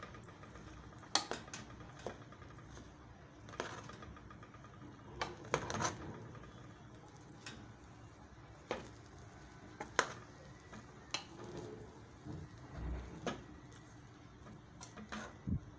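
Metal spoon stirring fried rice in a metal pot: irregular clinks and scrapes as the spoon knocks against the side of the pot, about a dozen through the stretch.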